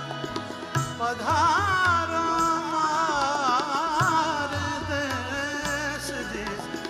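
Male folk singer holding a long wordless, ornamented vocal line with wavering turns, entering about a second in over instrumental accompaniment.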